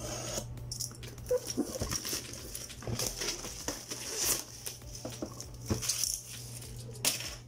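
Clear plastic shrink wrap crinkling and crackling as it is peeled off a cardboard box, with irregular sharp crackles and light handling knocks.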